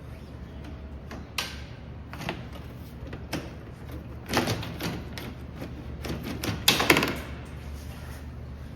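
Irregular clicks and knocks of hard plastic car trim parts being handled and set down, with the loudest clatter of several quick knocks near the end.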